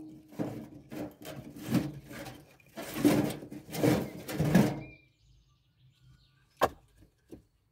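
Firewood logs knocking and clattering against one another as they are handled and stacked, a busy run of wooden knocks for about five seconds, then two sharp single knocks near the end.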